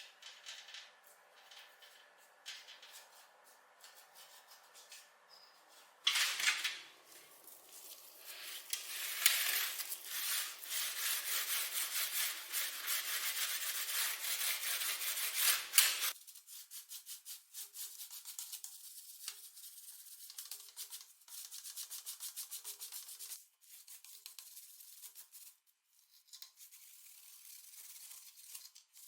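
Rapid rubbing strokes on a hard surface while keyboard parts are being worked on. After a few light clicks, the rubbing is loud and continuous for about ten seconds, then turns lighter and quicker.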